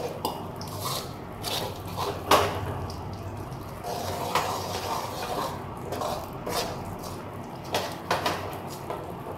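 Metal spoon stirring and scraping a thick gram-flour, sugar and ghee mixture in a metal kadai, with irregular clinks of the spoon against the pan. The loudest knock comes a little over two seconds in.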